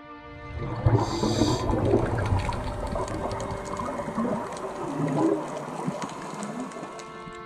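Underwater sound through a camera housing: scuba divers' exhaled bubbles gurgling and rumbling unevenly, with a short hiss about a second in.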